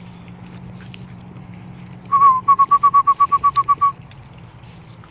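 A loud whistled call: one short note that dips slightly, then a quick run of about a dozen even notes at the same pitch, roughly nine a second, stopping after under two seconds.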